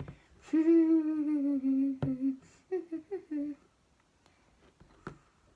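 A girl humming: one long held note, then a few short notes about a second later. A few sharp taps sound in between.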